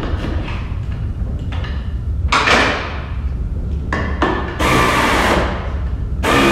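Impact wrench run in short bursts to take the hub off a tracked ATV's track system: a short burst about two seconds in, then a steady run of about a second and a half near the end, among clanks of tools on a steel workbench.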